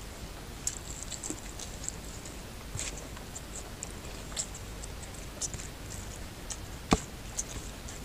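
Small wet, sticky clicks and crackles of fingers working oily curry rice and tearing at a whole cooked goat head on a steel plate, with one sharp knock about seven seconds in.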